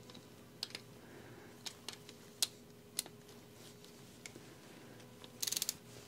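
Hand ratchet wrench clicking as bolts are tightened to about 40 inch-pounds: scattered single clicks, then a quick run of ratchet clicks near the end.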